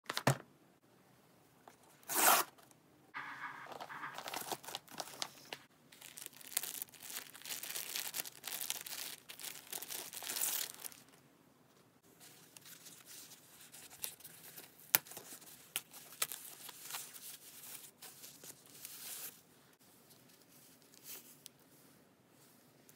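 Packaging torn open and unwrapped by hand: a short, loud rip about two seconds in, then long stretches of crinkling and rustling as the plastic and foam wrap is pulled off, with a few sharp clicks.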